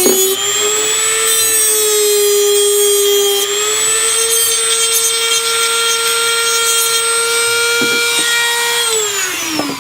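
Dremel rotary tool running at a steady high whine while cutting down a microphone shock mount's post, its pitch shifting slightly under load, then spinning down with a falling pitch near the end.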